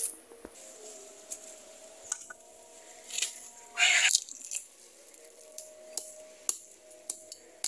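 Cassava roots being worked out of the soil by hand and cut from the stem with a machete: scattered sharp snaps and knocks, with one louder tearing rustle about four seconds in.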